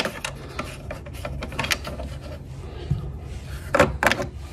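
Plastic snap-on covers of DC bus bars being handled and pulled off: light knocks and rattles, with a cluster of sharp clicks near the end, over a steady low hum.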